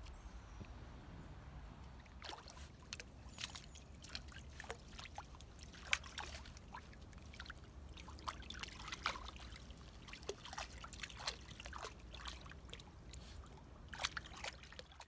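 Kelpie puppy wading through shallow pond water among reeds, making small irregular splashes and trickles from about two seconds in, over a low steady rumble.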